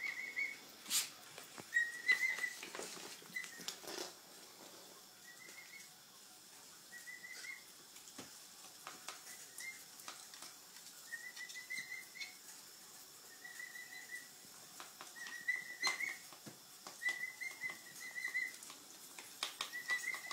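Emu chick giving short, high whistling calls, about a dozen at irregular intervals, each under a second with a slight warble, over scattered sharp clicks.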